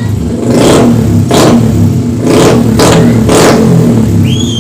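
Yamaha Sniper 135 single-cylinder four-stroke engine through an open LeoVince exhaust pipe, idling and revved in several short throttle blips.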